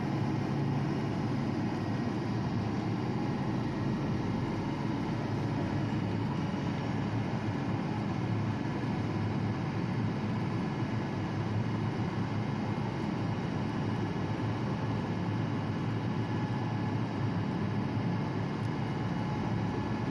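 A large engine running steadily, with a deep drone and a faint high whine over it.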